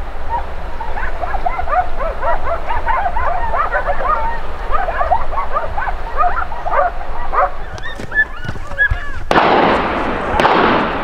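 A pack of hunting dogs barking and yelping in rapid, overlapping cries as they chase a wild boar. Near the end two loud gunshots go off about a second apart, each echoing off the hillsides.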